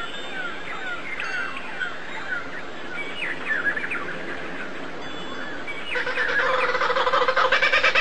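Small birds chirping in many quick, falling chirps. About six seconds in, a louder, rapidly pulsing bird call starts and keeps getting louder.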